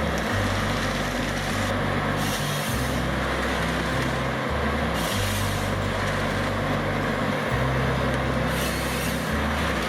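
Heavy forestry machine's diesel engine running, its hum shifting abruptly in pitch every second or two, with three short hiss bursts about three seconds apart.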